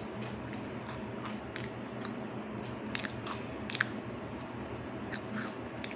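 A person biting and chewing an Oreo cookie, with a scatter of short, crisp crunches, the sharpest a little past the middle.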